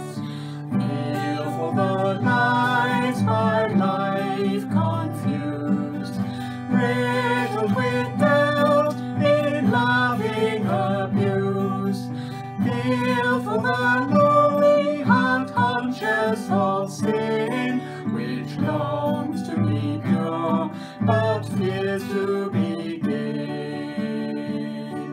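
A man and a woman singing a hymn together to guitar accompaniment.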